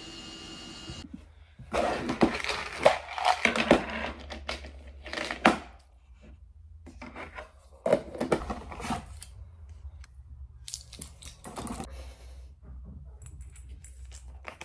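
Close handling noises at a desk: a few seconds of loud rustling and scraping, then a sharp knock and softer clicks and taps as the plastic lid of a supplement tub is opened, a glass of water is handled and a small bottle is picked up.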